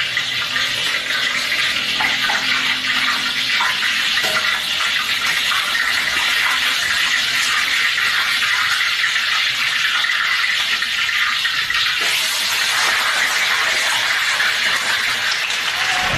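Food frying in hot oil in a wok, a steady loud sizzle that turns brighter and hissier about twelve seconds in.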